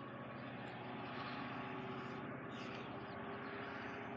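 Diesel freight locomotive engine working as the train gets under way, a steady droning hum that grows a little louder about a second in.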